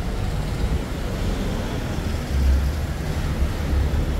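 Street traffic noise: a steady low rumble of passing vehicles, swelling briefly about two and a half seconds in.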